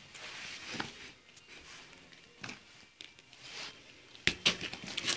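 A few scattered soft knocks and scuffs, the sharpest a little over four seconds in, from a Cane Corso nosing and pawing a worn leather football on a concrete path.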